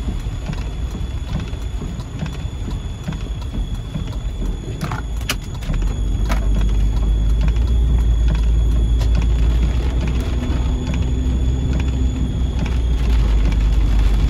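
Heavy rain hitting a moving car's roof and windshield, over the steady low rumble of the car and tyres on the wet road, heard from inside the cabin. It gets a little louder about six seconds in.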